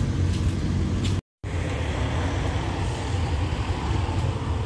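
Steady low diesel engine rumble. The sound drops out completely for a moment just over a second in.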